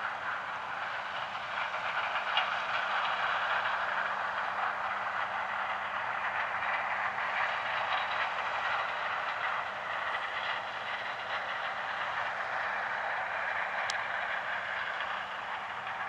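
Combine harvester and the tractor pulling a grain cart alongside running steadily while the combine harvests corn and unloads on the go: an even mechanical rush with a low steady hum.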